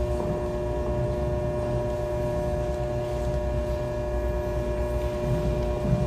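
Steady background hum with two constant pitched tones over a low rumble, unchanging throughout.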